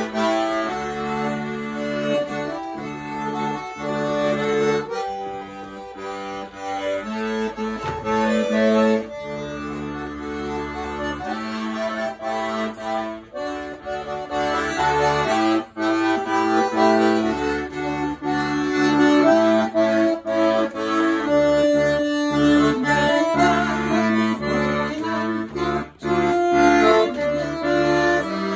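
Piano accordion playing a tune: sustained melody notes and chords over a bass line that changes with them.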